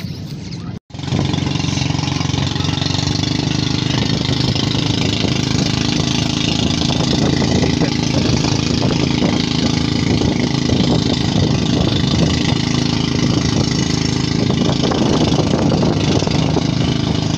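Boat engine running steadily while under way, with water splashing at the hull. The sound cuts out for a moment about a second in, then comes back louder.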